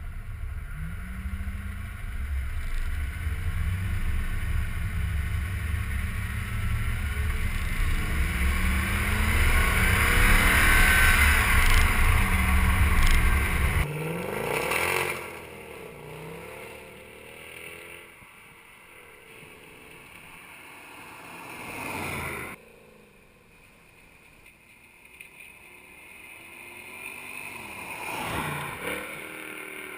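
A stock Mercedes-Benz C63 AMG's 6.2-litre naturally aspirated V8 runs close by, growing louder over about fourteen seconds. It then launches and accelerates away, its pitch climbing and dropping with each upshift as it fades. After a cut, the V8 is heard again from a distance and swells as the car approaches near the end.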